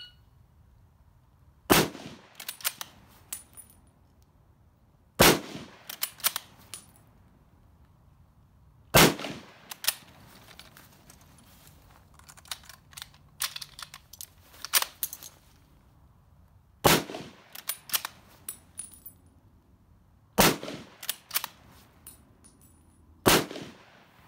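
Six shots from an M1917 Enfield bolt-action rifle in .30-06: three about four seconds apart, a gap for reloading, then three more. The bolt clacks as it is worked after each shot, and metal clicks through the reload in the middle.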